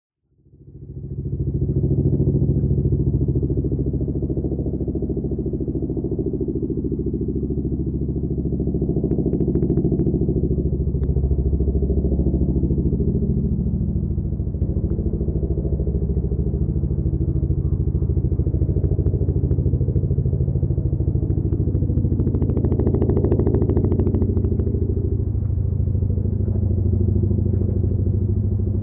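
Boeing CH-47 Chinook tandem-rotor helicopter running steadily: a deep, rapid chop of the twin rotors over the turbine engines' drone. It fades in at the start, and a sharper, brighter blade slap comes in for a few seconds about three-quarters of the way through.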